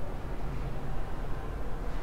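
Steady low background rumble and hiss with no distinct events: room tone in a pause between speech.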